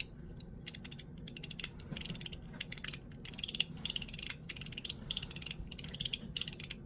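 Mechanical fidget slider being slid back and forth: repeated bursts of rapid, bright clicking from its detent mechanism, about two bursts a second, a poppy, bright sound.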